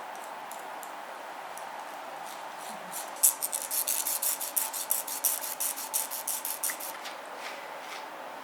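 Fast run of sharp little snipping clicks, about five a second, from a grooming tool working on a toy poodle puppy's paw during nail care. It starts about three seconds in and stops about a second before the end.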